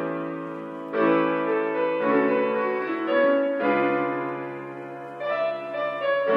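Background music: an instrumental stretch of a song, held chords changing every second or two, with no singing.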